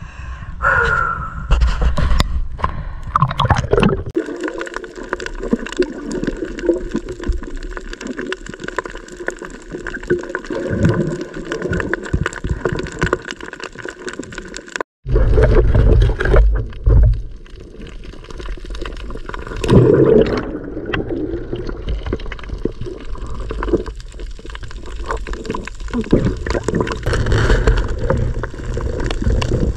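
Sea water around a GoPro microphone: splashing at the surface for the first few seconds, then the muffled, gurgling underwater sound of swimming over a reef. A brief break comes about halfway through, followed by heavier low water movement.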